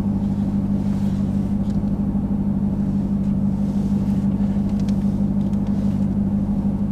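Steady engine drone of a Dodge Durango SRT Hellcat's supercharged V8, heard inside the cabin, holding an even pitch with no revving.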